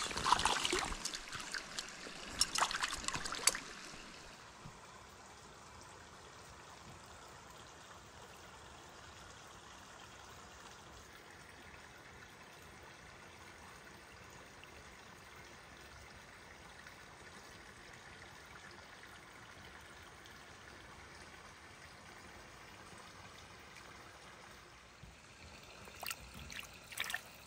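Small trout stream trickling and flowing steadily. A few louder splashy knocks and rustles come in the first few seconds and again just before the end.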